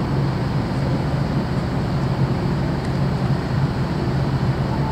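Steady low hum of the 1992 Tokai Kisen passenger-cargo ship Salvia Maru's diesel machinery running at its berth, with a noisy wash above the hum.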